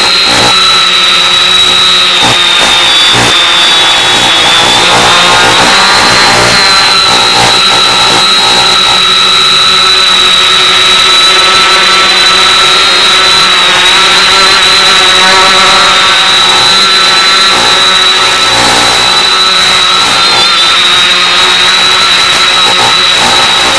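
X550AIOP quadcopter's electric motors and propellers running in flight, a steady high whine whose pitch wavers slightly with throttle, over a loud hiss from the analog FPV video downlink's audio.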